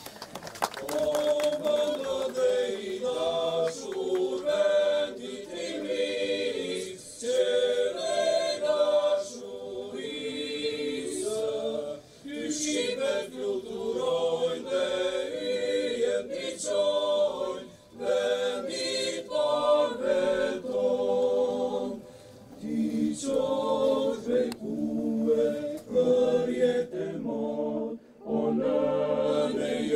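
Mixed choir of men's and women's voices singing unaccompanied, in sustained phrases broken by a few short pauses.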